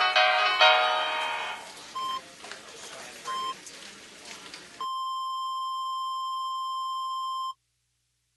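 The last notes of the background song fade out, then two short electronic beeps about a second and a half apart, followed by one long steady beep of nearly three seconds that cuts off suddenly.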